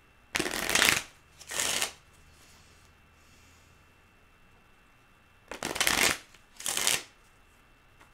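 A deck of tarot cards being shuffled by hand in four short bursts: a pair near the start and another pair about five seconds later.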